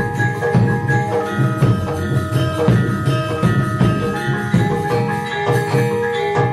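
Javanese gamelan music: struck metallophones ring out sustained notes several times a second over a pulsing low beat.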